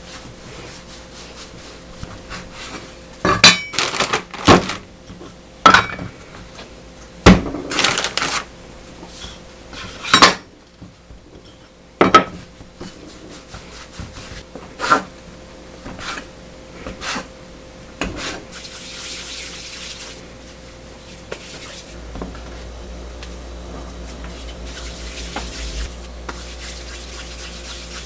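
Dishes, pots and cutlery clattering as they are handled: a run of sharp clinks and knocks, loudest in the first half, then fainter handling with a soft hiss.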